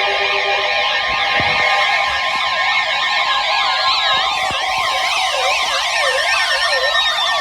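Several electronic sirens sweeping rapidly up and down in pitch at once, layered over steady tones. A few slower falling glides join in during the second half.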